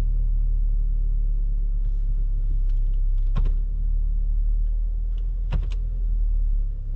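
Vehicle engine running with a steady low rumble, heard from inside the cab: a weird noise that the driver cannot yet place and that he says sounds like it's about to blow up. A few short clicks about three and a half and five and a half seconds in.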